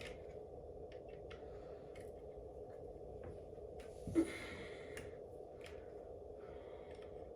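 Scattered light clicks of hand tools on metal parts of an electric scooter's folding mechanism as it is taken apart, with one louder knock about four seconds in, over a steady low hum.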